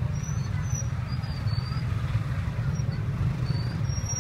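Steady low rumble of street-market background noise, like nearby traffic or an engine, with a few faint high chirps over it.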